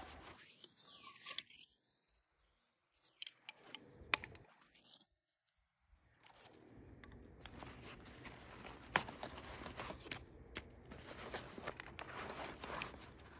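Camping gear being handled and unpacked from a nylon backpack: fabric rustling and scraping, crinkling packaging and a few sharp clicks. The rustling is broken by two short pauses in the first half and runs on more steadily in the second half.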